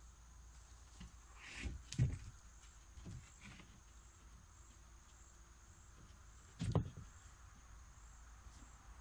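Steady high drone of insects, with two dull thumps about two seconds in and near seven seconds, and a few lighter knocks, from wood being handled on a plywood sub-floor frame.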